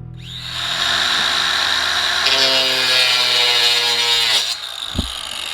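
A power tool's motor whining at speed, growing louder and harsher about two seconds in, then dropping in pitch as it winds down, followed by a single low thump near the end.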